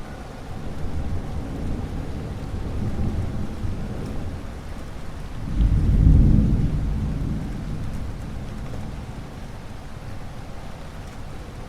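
Thunderstorm: steady rain with low rolling thunder, and a louder peal of thunder about halfway through that rumbles away over the next couple of seconds.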